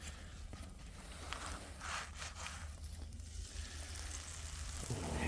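Faint sizzling of onions and carrots frying in a pan, with a few soft rustles; the sizzle gets louder near the end.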